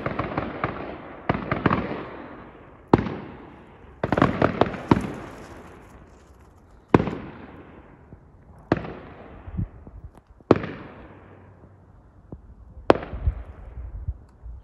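Aerial fireworks exploding: about eight sharp bangs a second or two apart, each followed by a fading rumble, with a burst of crackling about four seconds in.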